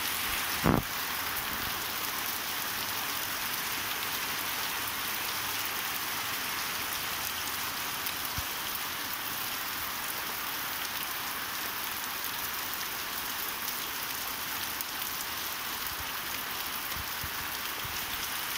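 Steady rain falling on trees and grass, an even hiss throughout, with a single sharp thump just under a second in.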